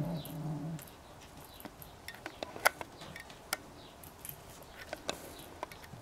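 A kitten's low, drawn-out growl during the first second, then scattered light knocks, taps and scratches as kittens climb and jump about a sisal-covered cat tower.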